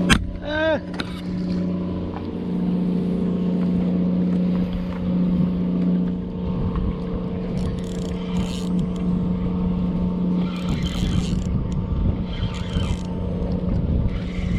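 Steady low hum of an idling engine, holding one pitch throughout, with a few brief higher, hissy sounds between about 8 and 13 seconds in.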